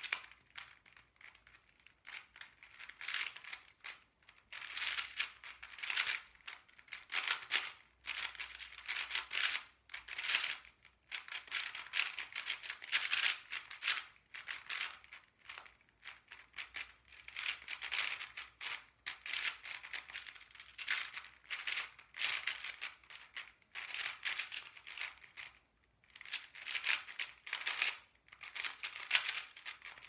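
Aosu GTS2 M magnetic 4x4 speedcube being turned fast in a solve: rapid flurries of plastic clicking and clacking from the turning layers, broken by brief pauses.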